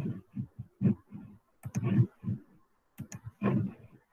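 Irregular clicks and soft knocks, several a second, from a computer mouse being clicked and moved on a desk while annotating on screen.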